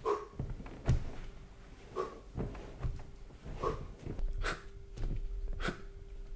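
A person moving about in a small room: scattered knocks and thuds, with short breaths every second or two and a faint steady hum underneath.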